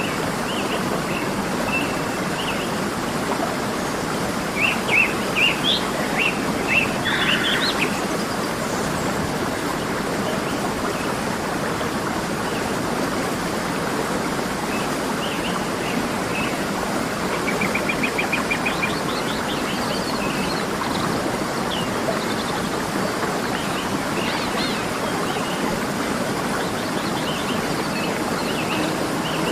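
Steady rush of a waterfall with birds chirping over it. The chirps are scattered, with a cluster of louder calls from about five to eight seconds in and a quick, evenly paced trill at about eighteen seconds.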